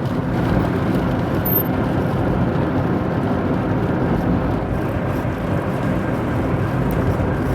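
Steady road and wind noise inside a Rover 25's cabin at motorway speed, with the car coasting downhill in neutral.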